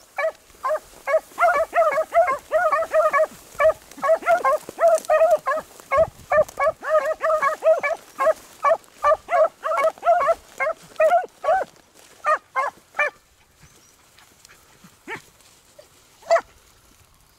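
Beagles giving tongue in quick, overlapping yelps as they work a rabbit's scent line. The barking stops about three-quarters of the way through, leaving two lone yelps near the end.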